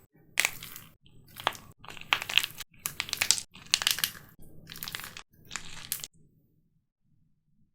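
Dried plaster clay being cracked and crushed, a run of about seven crunchy cracking bursts close to the microphone, then it stops about six seconds in.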